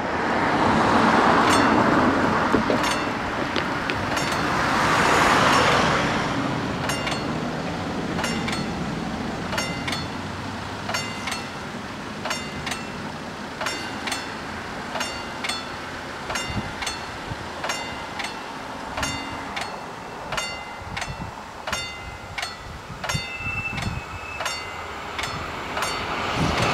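Road vehicles drive past over a level crossing, then about seven seconds in the crossing's warning bell starts striking steadily, a little over once a second, and keeps going while the half barriers come down. The noise of the approaching train swells near the end.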